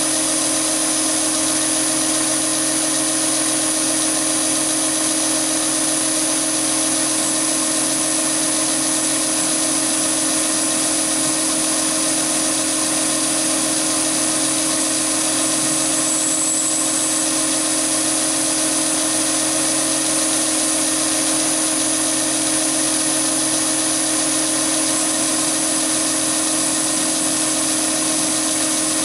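Chinese mini lathe running at a steady speed while a blue nano solid carbide boring bar cuts the bore of a 316 stainless steel workpiece: an even machine hum with a high whine over it.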